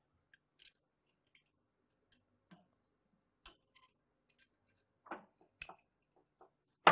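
Scattered light metal clicks and taps as a tubular hex element wrench on an electric water heater's heating element is handled and gripped with tongue-and-groove pliers. A sharper knock comes near the end.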